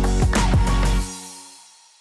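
Background music with regular drum hits over sustained bass notes, ending about a second in and dying away into silence.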